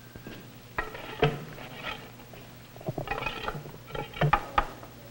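Scattered light knocks and clinks, a few with a brief metallic ring, bunched in the middle and near the end: tools or hardware being handled.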